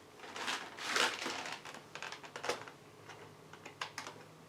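Handling noises: a few rustling scrapes in the first second or so, then scattered light clicks and taps.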